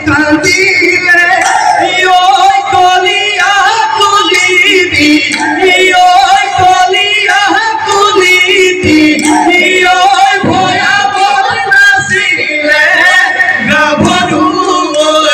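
Bihu folk music: men and women singing together in chorus over steady dhol drumming.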